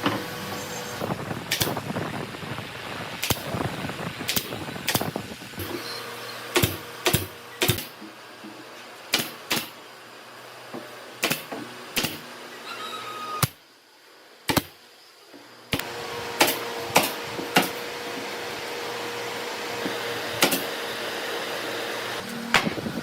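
Irregular sharp knocks and taps from hand-tool woodworking, about one a second, over a steady background hum that drops away for a couple of seconds midway.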